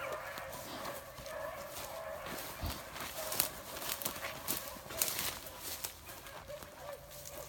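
Pack of rabbit-hunting beagles running a track, hounds baying, with repeated sharp crackles and footfalls in dry leaves and brush as the dogs pass close.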